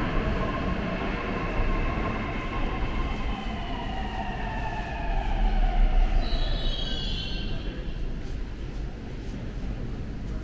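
Metro train braking at the platform: its whine falls steadily in pitch over a heavy rumble, and a brief high squeal comes about six seconds in as it slows to a stop.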